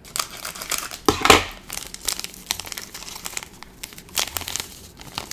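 Plastic candy packet crinkling and crackling as it is cut open with scissors and handled, with a louder crackle about a second in.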